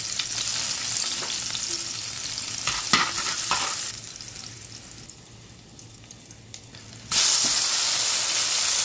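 Chopped garlic sizzling in hot oil in a frying pan, with a couple of sharp knocks about three seconds in. The sizzle dies down for a few seconds, then jumps suddenly louder about seven seconds in as chopped yellow tomatoes go into the hot oil.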